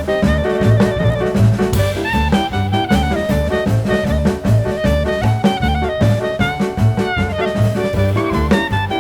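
Background music: upbeat jazz with a steady drum beat and a brass melody.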